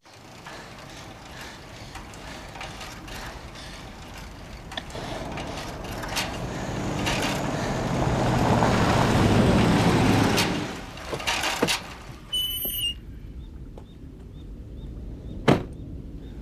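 A vehicle's engine and road noise growing louder, peaking and then dropping away suddenly about ten seconds in, with scattered clicks, a brief high chirp and one sharp click near the end.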